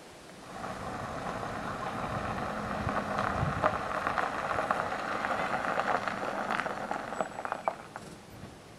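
Mercedes-Benz Sprinter delivery van driving slowly up a gravel road, its engine running and its tyres crunching and crackling on the loose stones, getting louder as it comes close. It eases to a stop near the end.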